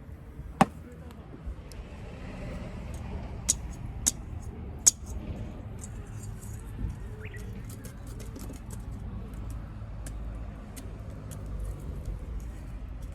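Sharp clicks and clinks of small hard objects being handled, with a few louder knocks in the first five seconds and lighter ticks after, over a steady low rumble.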